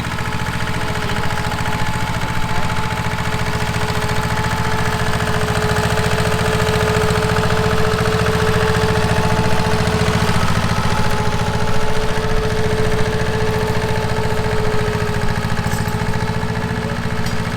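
Tractor engine running steadily, with a steady high tone over its low rumble.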